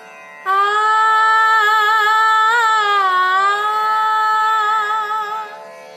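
A woman's voice sings one long held note without words, with vibrato and a dip in pitch about halfway through. Under it runs a steady instrumental drone from a backing track.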